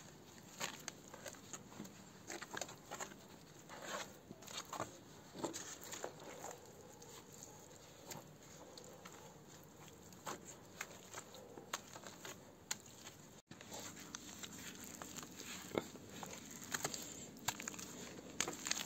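A trowel scraping and smearing wet cement mortar onto brickwork in short, irregular strokes.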